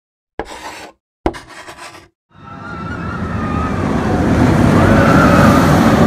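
Intro sound effects: two short sharp hits about a second apart, then a rushing rumble that swells steadily louder, with a faint wavering tone in it.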